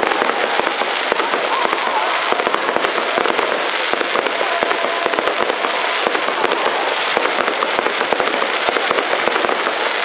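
Aerial fireworks going off in a dense, continuous barrage of rapid pops and crackles, one report tumbling over the next without a break.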